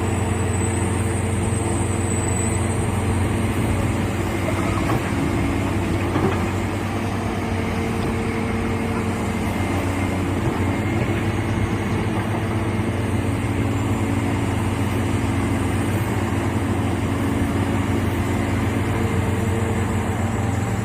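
Caterpillar 365 excavator's diesel engine running steadily at constant speed.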